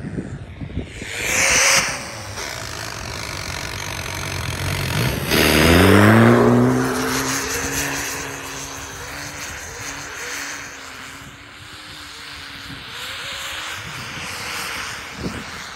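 Lada Niva's diesel engine revving hard under load as the 4x4 ploughs through deep snow, pouring black smoke. A rush of noise comes about two seconds in, then the engine note climbs steeply about five seconds in and holds high and steady.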